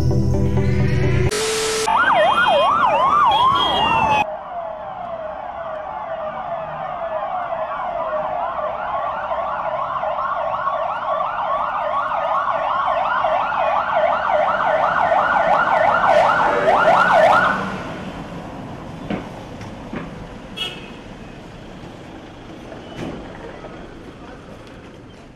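Electronic emergency-vehicle sirens of an arriving ambulance convoy, sweeping rapidly up and down in pitch, starting a second or so in after a brief bit of music and cutting off about 17 seconds in, leaving quieter street noise with a few knocks.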